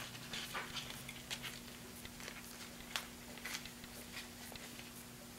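Faint rustling of a plastic zip bag with small scattered clicks and taps as hair shears are handled and slipped into it, over a low steady hum.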